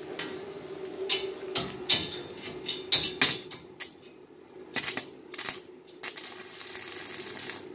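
Stick (arc) welder welding a steel door frame: a run of short, sharp crackling arc strikes, then a steady sizzling arc for about the last two seconds. A steady hum runs underneath.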